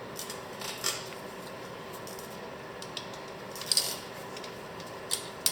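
A few light metallic clicks and clinks of hand tools and small parts being handled, spaced out over a few seconds, against a faint steady hum.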